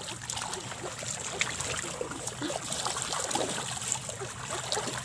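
Hands sloshing through shallow muddy water, feeling for fish among rice stalks: a steady run of small splashes and gurgles.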